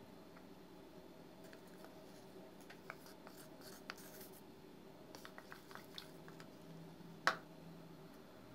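Wooden ice-cream stick stirring and scraping in a small bowl with a little liquid, a series of light scratches and ticks. About seven seconds in, one sharp knock, the loudest sound, as the bowl is set down on the table.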